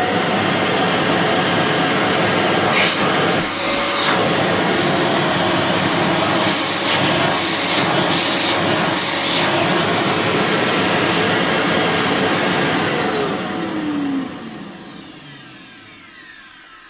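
LG 2000 W vacuum cleaner running steadily on its freshly repaired YDC01-20A motor, with a few brief louder rushes of air midway. Near the end it is switched off and its pitch falls as the motor spins down. The motor runs smoothly and no longer hums, a sign that the repair has cured the fault.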